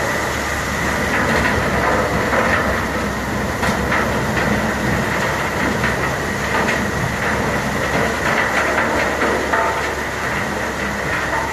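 Mobile tub grinder with a 550 hp diesel engine running hard, a steady heavy mechanical din broken by irregular cracks and knocks as wood stumps are crushed.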